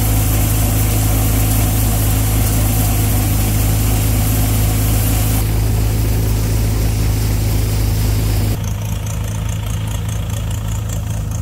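Tractor engine driving a Royal multicrop thresher threshing groundnuts, with the engine and the thresher running steadily together in a loud, even hum. About three seconds before the end the sound drops a little in level and turns duller.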